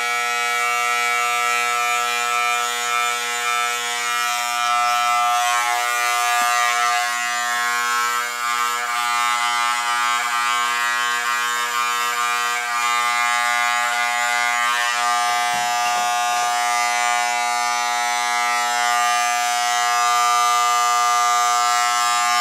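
Electric hair clippers running with a steady buzz while being worked through hair.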